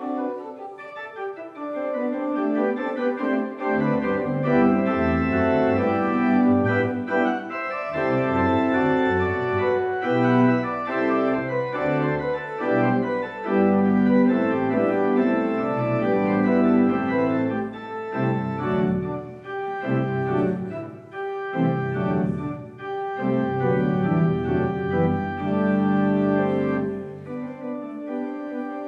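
Allen church organ playing slow, sustained chords. The pedal bass comes in about four seconds in and drops out briefly between phrases.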